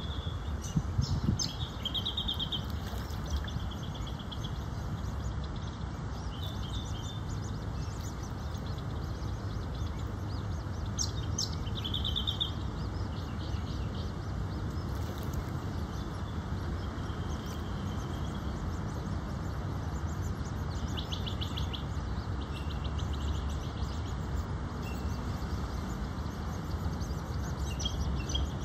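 Birds chirping in short clusters of quick high notes every few seconds, over a steady low rumble.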